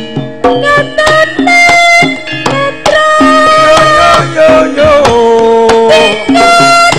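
Javanese karawitan ensemble playing a loud instrumental passage: held, slightly bending melody notes over a steady pattern of hand-drum strokes.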